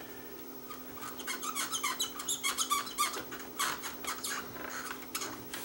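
Cotton swab scrubbed quickly back and forth across the erase head of a Technics RS-676 cassette deck while cleaning the head. It gives a fast run of short squeaks, several a second, from about a second in until shortly before the end.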